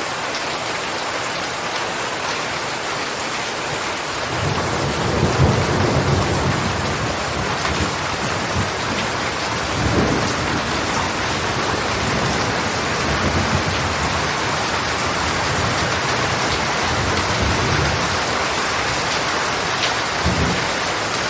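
Steady heavy rain hissing, with rolling thunder coming in about four seconds in and rumbling on in several swells, the loudest rolls near the start of the thunder and again about halfway through.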